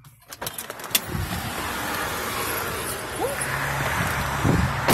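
A few sharp clicks in the first second as a car door is unlatched and opened, then steady outdoor street noise with road traffic running past. A single sharp knock near the end.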